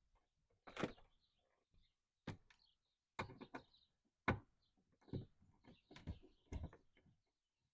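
Scattered clicks and knocks of hand tools and plastic door-panel trim being handled and worked loose, about eight to ten separate sounds at uneven intervals.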